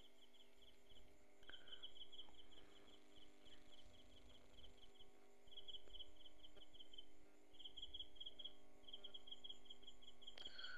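Faint cricket chirping: trains of rapid, evenly spaced high-pitched pulses at one pitch, broken by short pauses, over a faint steady hum.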